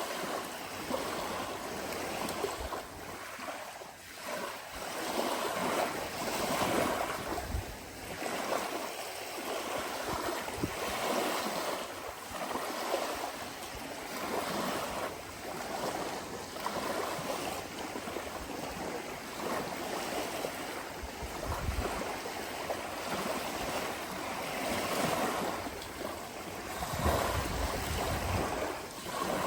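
Ocean waves washing in and breaking, the surf swelling and ebbing every few seconds, with a low rumble under some of the larger waves.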